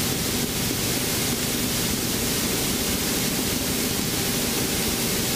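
Steady rushing noise inside a Robinson R44 Raven helicopter cockpit in flight: airflow and main rotor, with a faint low hum underneath.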